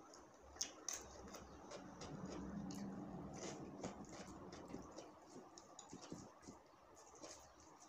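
Quiet sounds of eating by hand: fingers mixing rice and vegetables on a plate and a mouth chewing, heard as a scatter of small clicks and smacks. A faint low hum comes in for a couple of seconds in the middle.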